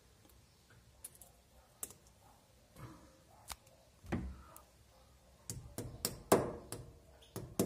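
A plastic wall plug being fitted into a hole drilled in a plaster wall: a few light clicks as it is pushed in by hand, then a quick run of sharp taps as it is knocked home with a hammer in the second half.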